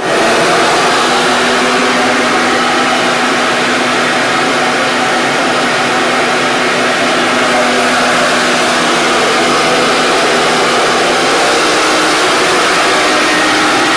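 Handheld electric blower switched on suddenly and running steadily: a loud rush of air with a constant hum that steps up slightly in pitch near the end.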